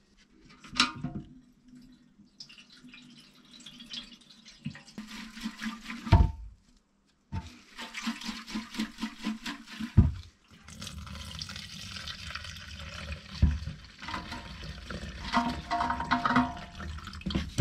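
Old petrol swirled around inside a small generator's fuel tank and then poured out of the tank into a plastic jug, with a few thumps as the tank is handled.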